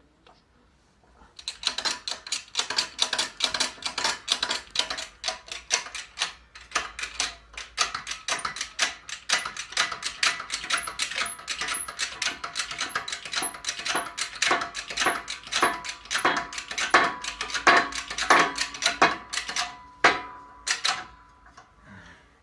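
A ratchet wrench clicking in quick repeated strokes, driving the screw of a bushing press that forces a new rubber silent block into the control arm. The clicking starts about a second and a half in and stops shortly before the end.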